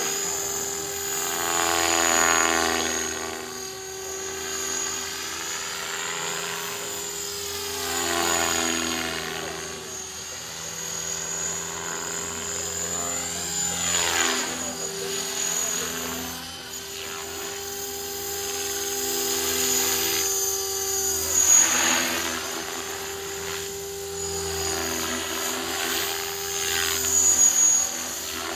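Align T-Rex 500 electric RC helicopter flying aerobatics: a steady whine of motor and gears under the swish of the rotor blades. It swells louder several times as it sweeps close and fades as it moves away.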